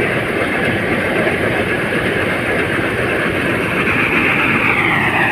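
Combine harvester running: a loud, steady mechanical noise of engine and machinery, with a whine that drops slightly in pitch near the end.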